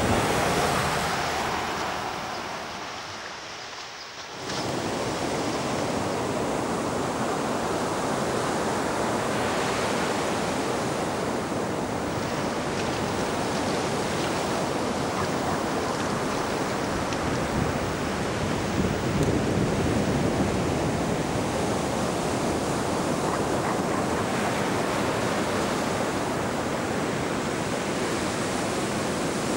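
Ocean surf washing onto the shore, a steady rushing noise. It fades down over the first few seconds and comes back suddenly at about four seconds.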